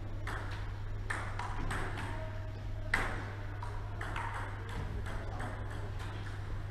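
Table tennis rally: the ball clicking off the paddles and bouncing on the table in a quick, even back-and-forth, about two hits a second, with one sharper hit about three seconds in. A steady low hum runs underneath.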